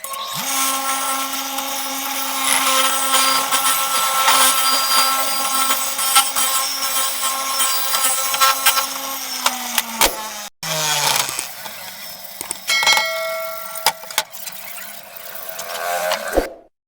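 An 1880 sewing machine running, with a steady hum and rapid clicking of its mechanism. It slows and stops about ten seconds in, then runs again in short spells before stopping near the end.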